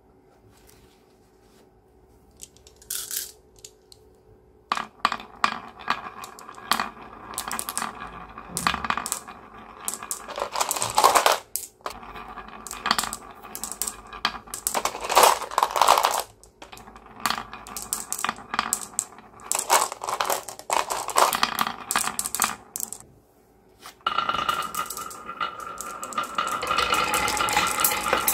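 Many glass marbles rolling and clacking down carved wooden marble-run slopes: a dense run of clicks and rattles that starts about five seconds in, becoming a steadier continuous rolling rattle near the end.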